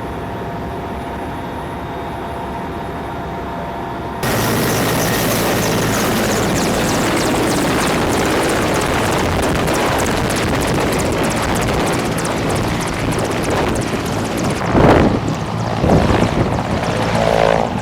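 Helicopter engine and rotor running as a steady drone, jumping suddenly louder and rougher about four seconds in. Two loud low thumps come near the end.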